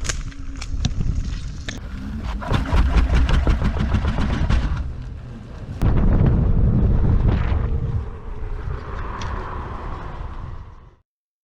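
Outdoor noise with a heavy low rumble of wind buffeting the microphone and many sharp clicks and knocks. It jumps abruptly louder about six seconds in, then cuts off just before the end.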